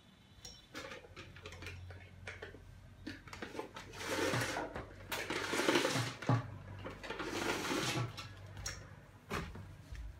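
Handling noise as a ring light's power cable is plugged in and moved about: a string of clicks and knocks, with two longer stretches of rustling and scraping around the middle.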